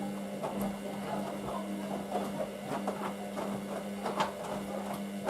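Hoover VisionDynamic washing machine running in its main wash, its drum motor giving a steady hum with irregular soft clicks and taps over it.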